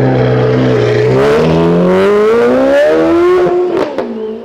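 Ferrari F430 V8 accelerating away. The revs climb steadily for about two seconds, then drop sharply with an upshift and a few exhaust crackles near the end, and the engine settles to a lower, steady note.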